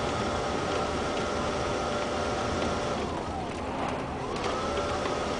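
Coach running at highway speed, heard inside the cabin: steady engine and road noise with a steady whine. About three seconds in, the whine falls away and the noise eases, then the whine rises back up a second later.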